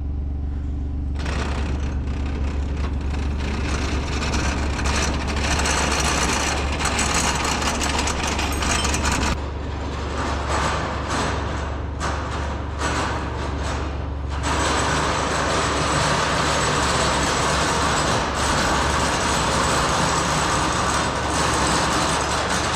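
Large farm tractor's diesel engine running with a steady low drone. About a second in, a louder rushing noise joins it. It drops out in short gaps from about ten to fourteen seconds in, then returns steadily.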